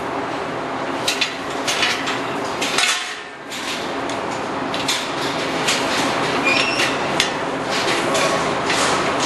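Galvanized steel sow stall gates and lock fittings clanking and rattling irregularly as sows move in the stalls, over steady barn background noise. A short high squeak comes about two-thirds of the way through.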